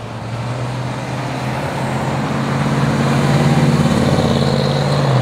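1968 Ford Mustang's freshly rebuilt 289 V8 running through its dual exhaust as the car drives past, growing louder as it nears and loudest about three to four seconds in.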